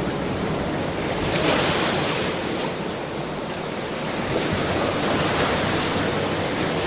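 Ocean surf: waves washing in a steady rush of water, swelling about a second and a half in and again later.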